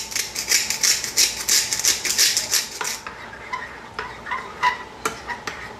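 A pepper mill grinding black pepper in rapid repeated turns for about three seconds, then a metal spoon stirring sauce in a ceramic bowl, clinking against its sides.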